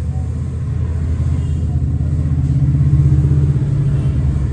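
Low rumble of road traffic, swelling to its loudest about three seconds in as a vehicle passes, then easing.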